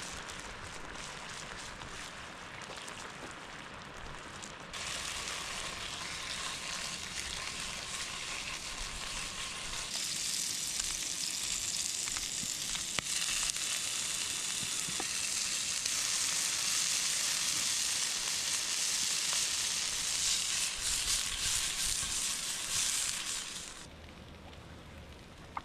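Frankfurter sausages sizzling as they cook. The sizzle grows louder about five seconds in and again about ten seconds in, then drops away near the end.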